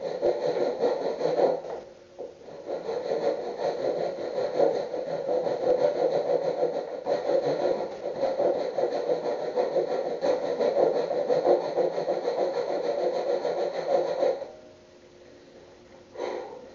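Handsaw cutting into a wooden board with steady back-and-forth strokes. There is a short break about two seconds in, the sawing stops abruptly about two seconds before the end, and a brief scrape follows.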